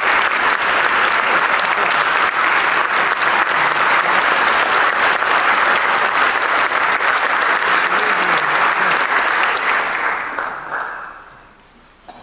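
Audience applauding steadily, then dying away about ten seconds in.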